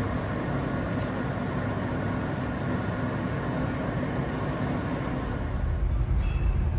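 New York City subway train running with a steady rumble and hum. The low rumble grows heavier near the end, and there is a brief high squeal about six seconds in.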